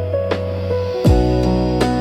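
Calm lofi jazz music: held keyboard chords over warm bass, with a soft drum hit and a new low bass note coming in about a second in.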